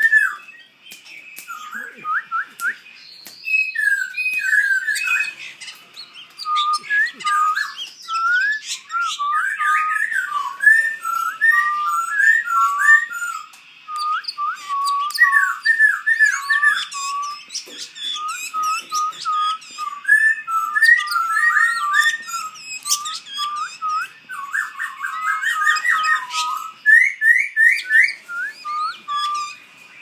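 Caged songbirds singing: a near-continuous stream of short, varied whistled phrases and glides, with quicker, fainter chirps and twitters above them.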